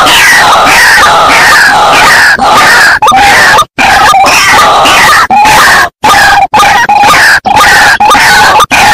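White-breasted waterhens calling loudly and without pause, as in a bird-trapping lure recording: a dense run of repeated falling notes with steadier croaking notes under them. Two sudden brief breaks cut in, about four and six seconds in.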